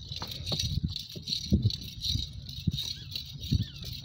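Cart rattling and knocking as it rolls over a rough dirt track, with a light jingle pulsing about twice a second.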